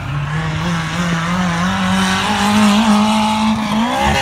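Race car's engine running hard, its pitch climbing steadily as it accelerates, then sweeping up and dropping sharply as it passes close by about four seconds in.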